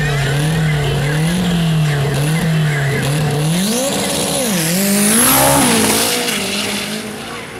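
Drag-racing pickup's engine revving during a burnout, with its rear tyres spinning and squealing. The engine note holds a wavering pitch at first, then climbs and swings up and down about four seconds in, with a high whine rising near the five-second mark.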